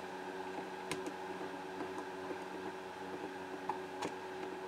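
A few faint, light metal clicks as a flat screwdriver presses on the parts in a Vz.50 pistol slide to free the firing-pin plug, over a steady low hum.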